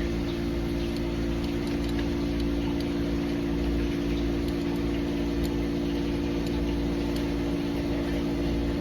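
Steady machinery hum with a constant low drone of several held tones, like an air-conditioning or refrigeration unit running, with a few faint small clicks over it.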